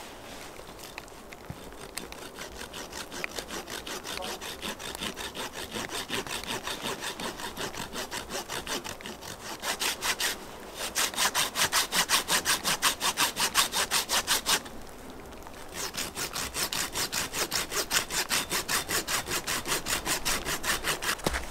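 Hand-held curved-blade garden saw cutting through a wooden stake in quick, even back-and-forth strokes. The strokes grow louder about halfway through, with two short pauses.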